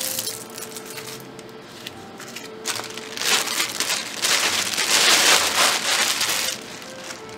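Plastic bag crinkling and rustling as a remote control is unwrapped, loudest in the middle and easing off near the end, over soft background music.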